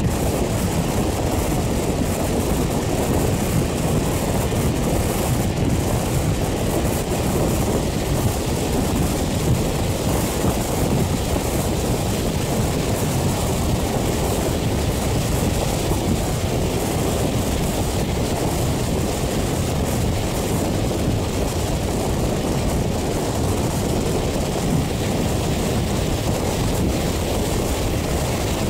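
Steady rush of wind and the running noise of a moving passenger train, heard from an open carriage window with wind on the microphone.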